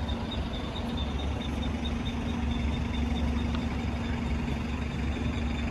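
City street traffic: a steady low rumble of engines with a constant engine hum over it, and a faint, fast, high-pitched ticking running underneath.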